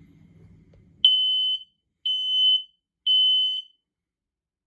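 Home smoke alarm going off in a test, sounding the temporal-three pattern: starting about a second in, three high-pitched beeps of about half a second each, then a pause. This is the standard fire evacuation signal.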